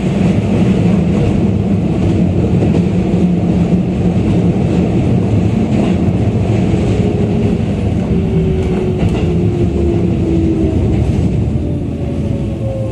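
Cabin running noise of a Keikyu 600 series electric train: a steady rumble of wheels on rail. From about seven seconds in, the traction motors' whine comes in and falls slowly in pitch as the train slows.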